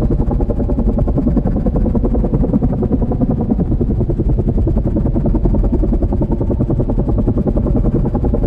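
Helicopter running steadily: a loud, fast, even low chopping from the rotor over the engine.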